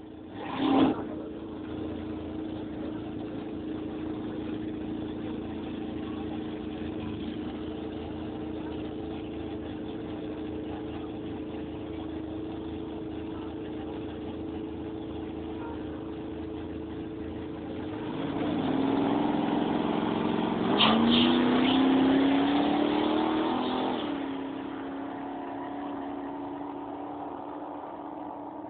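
An engine running steadily, then revved for several seconds past the middle, its pitch climbing, before settling back to a steady run. A sharp knock comes just under a second in.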